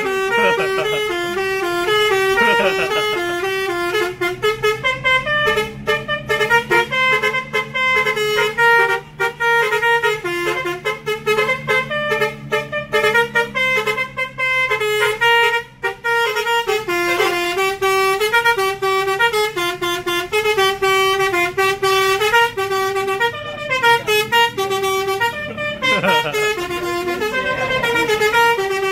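Basuri melodic air horn on an NPM intercity bus playing a tune: a quick run of stepped notes, several at once, repeated over and over.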